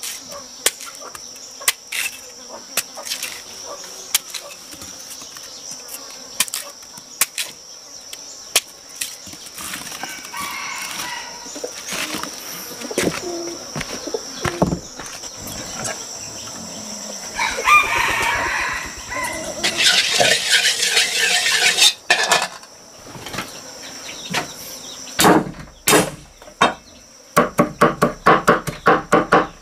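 A knife slicing peeled tubers, with sparse sharp clicks, over a steady high insect drone. Midway, chickens cluck and a rooster crows, with a burst of wing flapping. Near the end a cleaver chops rapidly and evenly on a wooden block.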